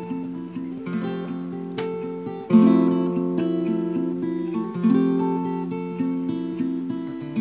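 Acoustic guitar played slowly, picked notes ringing over held chords, with a firmer stroke about two and a half seconds in.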